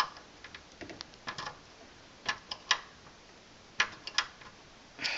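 Irregular sharp clicks and taps of a screwdriver and screws working against a metal PC case while a power supply is screwed in, some clicks coming in quick pairs.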